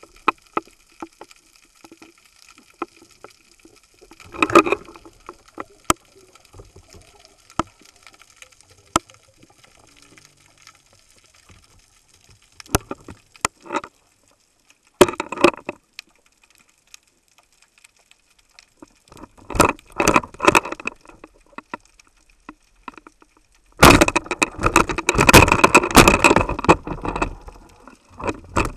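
Water sounds as heard through an underwater camera: scattered sharp clicks and crackles, with several bursts of bubbling and rushing water, the longest starting about 24 seconds in and lasting around three seconds.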